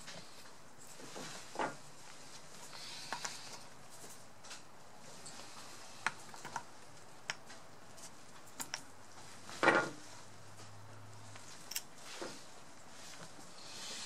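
Scattered small clicks and knocks of metal binocular parts being handled and seated as an eyepiece assembly and its bridge arm are fitted back over the central focusing-knob bolt, with one louder knock about ten seconds in.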